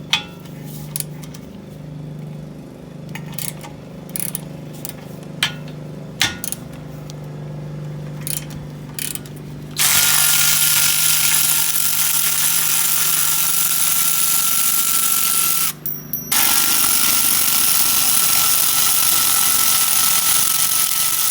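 A few light clicks and knocks, then a power tool runs loudly with a steady whine, backing out the 17 mm caliper bracket bolts on a Kia Rio front brake. It starts about halfway through, stops briefly for a moment, then runs on to the end.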